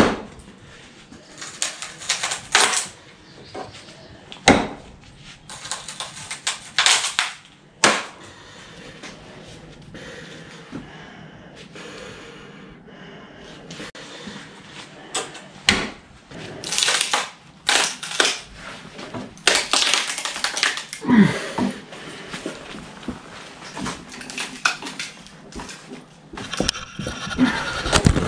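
Irregular handling noise: a string of clicks, knocks and scrapes of metal on a wooden pallet as a KA-BAR tanto knife is set upright in the pallet's slats.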